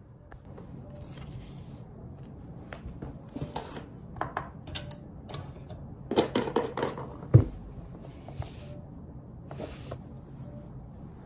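Plastic measuring scoop clicking and scraping in a plastic bottle of herbal extract granules, with short rustling pours of granules and paper. One solid knock a little past the middle, the loudest sound, as something is set down on the table.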